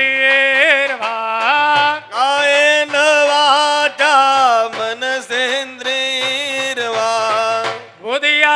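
Slow, ornamented singing of a Sanskrit devotional verse in long held notes that glide and waver, with short breaks between phrases, over musical accompaniment.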